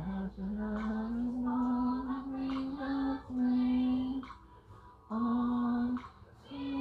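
A solo voice singing unaccompanied, holding long sustained notes. The phrases break off twice for short pauses, about four seconds in and again near six seconds.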